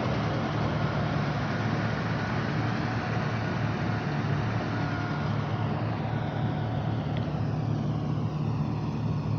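An engine running steadily: a constant low hum under a broad wash of noise, with a slow sweeping shimmer in the higher part of the sound during the second half.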